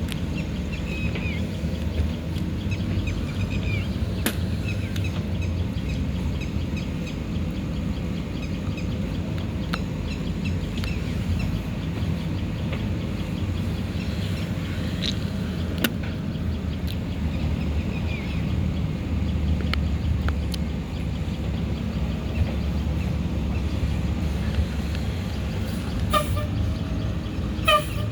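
Diesel engine of a JCB 3DX backhoe loader running steadily while it digs and loads mud, with occasional short metallic knocks. A few short high squeaks come near the end.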